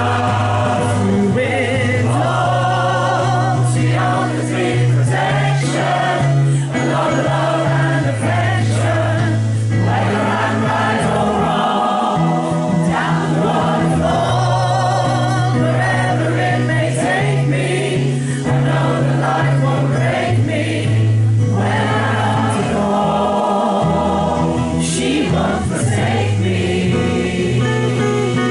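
A choir singing continuously over long held low notes.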